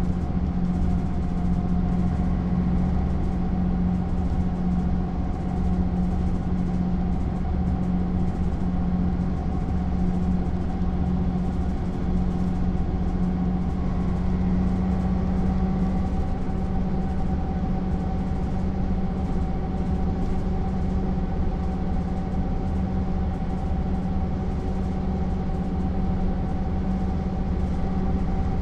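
MAN SL 200 bus's horizontal six-cylinder diesel engine running at a steady speed, as when cruising, its pitch drifting only slightly.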